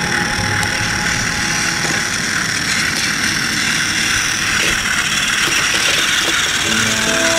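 Battery-powered Plarail toy train motors whirring steadily, with a light plastic gear rattle, as a toy engine pulls its coaches along the track.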